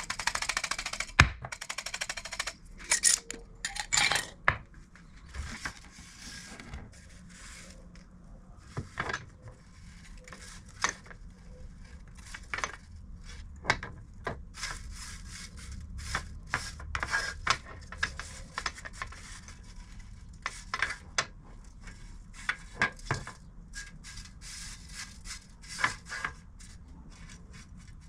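Small metal objects clinking, knocking and scraping as they are handled on a workbench, with stretches of rubbing. The clicks are irregular and separate, and the rubbing is heaviest in the first couple of seconds.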